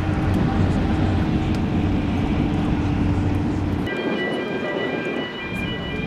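A ship's deep horn sounding one long, steady blast that cuts off about four seconds in. Higher-pitched horn tones then sound in broken stretches, part of a harbour salute.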